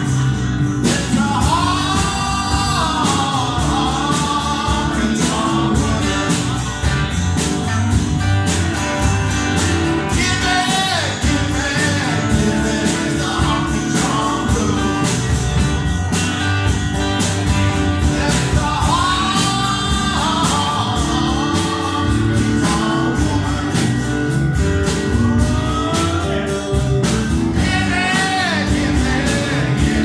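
Live country-rock band playing: strummed acoustic guitar, bass and drums keeping a steady beat, with a sung or played lead melody coming in in phrases over the top.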